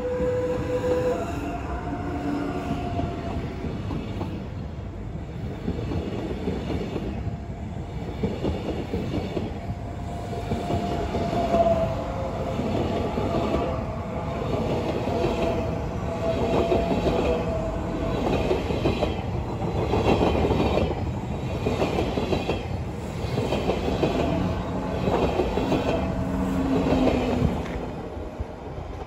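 SBB ETR 610 (Astoro) electric train running out of the station: a steady wheel rumble with high wheel squeal at the start and again mid-way, and a regular clatter of the wheels over rail joints and points. It fades near the end as the train draws away.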